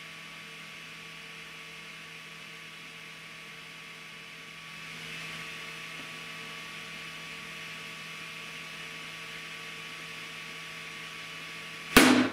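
Universal testing machine running with a steady hum and a few constant tones as it pulls a tensile specimen. Near the end comes a single sharp, loud bang as the specimen fractures.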